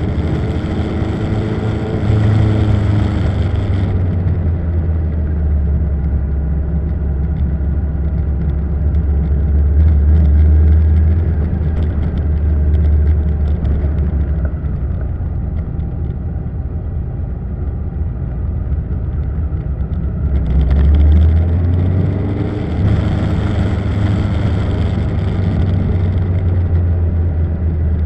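Motorcycle engine running under way, its revs rising and falling through a series of bends, over a steady low drone. A rushing hiss of wind and road noise comes up strongly at the start and again from about twenty seconds in.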